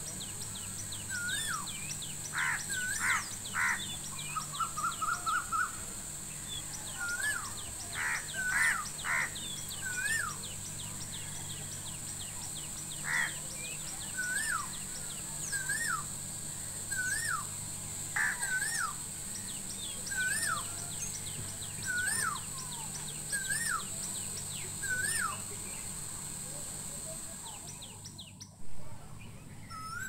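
Mixed morning birdsong: one bird repeats a short rising-and-falling whistle about every second and a half, others chirp high and fast, with a short trill and a few harsh calls in the first half. A steady high hiss runs underneath, and there is a brief bump near the end.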